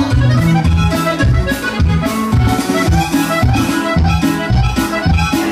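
Loud Latin dance music with a steady bass beat, played over a party DJ's sound system.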